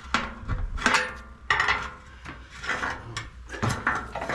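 Hammer or steel bar striking the steel trailer frame and an old stabilizer leg to knock it loose: about five irregular metal-on-metal strikes, each ringing briefly.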